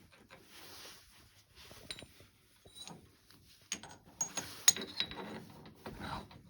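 Small metal parts and tools being handled: rubbing and scraping with sharp metallic clinks, the clinks bunched and loudest about four to five seconds in.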